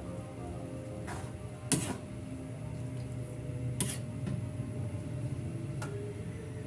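A few short sharp clicks or knocks, the loudest about two seconds in, over a steady low hum.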